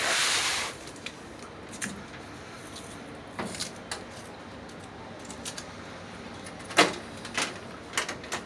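Handling noises: a short scraping rustle at the start, then scattered light knocks and clicks, the loudest about seven seconds in.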